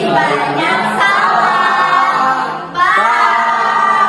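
A group of students' voices singing together without accompaniment; about three seconds in they start a new long held note.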